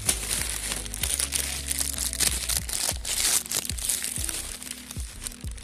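Plastic bag crinkling and rustling as lemons are picked and dropped into it, with soft background music underneath.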